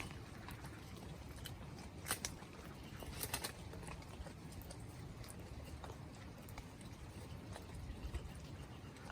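Steady light rain with dripping water, and a few sharp clicks about two seconds and three and a half seconds in.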